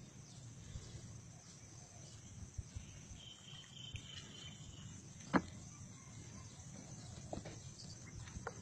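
Quiet outdoor ambience with steady high-pitched insect chirring, and a single sharp click about five seconds in.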